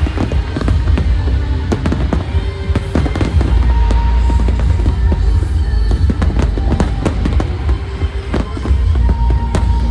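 Fireworks bursting and crackling in many sharp bangs throughout, over loud music played in time with the display, with a deep rumbling low end.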